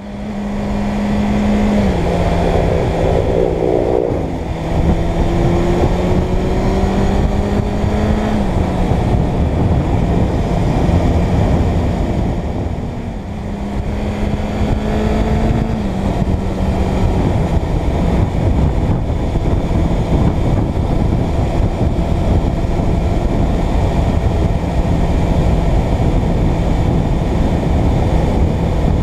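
Suzuki Bandit 600's inline-four engine running under way at road speed, its note rising and then dropping in pitch a few times in the first half, then holding steady. Wind rushes over the microphone throughout.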